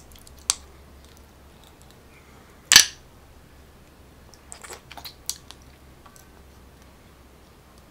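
Hard clicks and taps of cooked sea snail shells and a toothpick being handled over a ceramic plate: a sharp click about half a second in, a louder click near three seconds in, then a few lighter ticks.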